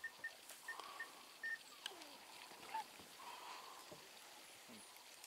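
Faint animal calls: five short high chirps in the first second and a half, then a squeal that falls in pitch about two seconds in.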